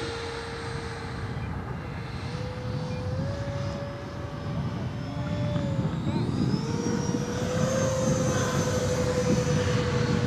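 Electric ducted-fan whine from Freewing RC jets, an F-4 Phantom and an F-86, in flight. About six seconds in a higher whine rises in pitch and the sound grows louder as the F-4 passes low.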